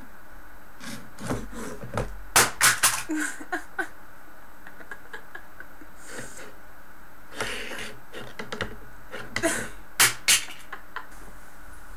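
Small plastic devices being pushed about and off a wooden tabletop by a cat's paw: sliding scrapes and clattering knocks, in two bursts of sharp clicks, the first about two to four seconds in and the second from about seven and a half to ten seconds in, ending with two loud knocks.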